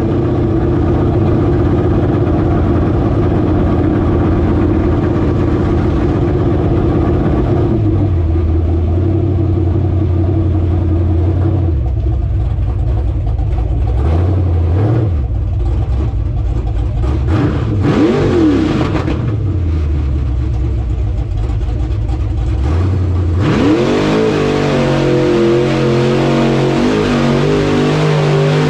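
Square-body Chevy mud truck's engine at wide-open throttle pulling through a mud pit, heard from inside the cab. The engine note holds steady for several seconds, then drops and surges again several times, and climbs sharply about two-thirds of the way through.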